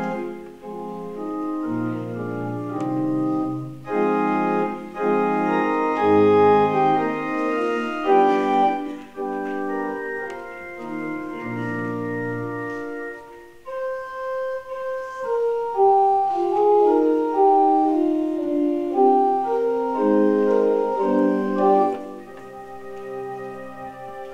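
Church organ playing slow, sustained chords. The low bass notes drop out about halfway through, leaving only the upper voices, then come back, and the playing is softer near the end.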